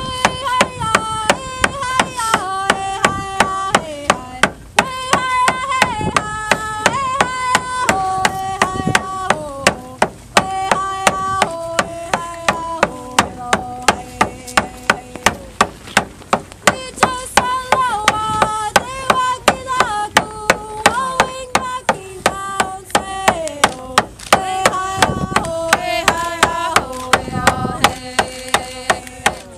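Rawhide hand drum beaten in a steady, even rhythm while voices sing a song over it, holding notes and stepping between them.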